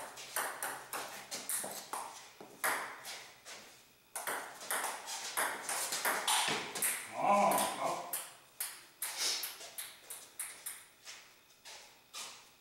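Table tennis ball clicking off rubber paddles and the table top in quick exchanges, with a short pause about four seconds in. A brief high squeal about seven seconds in.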